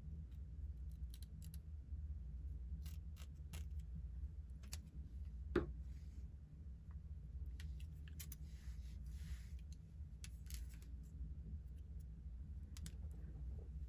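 Small scissors snipping at a wig's lace, in scattered sharp clicks over a steady low hum.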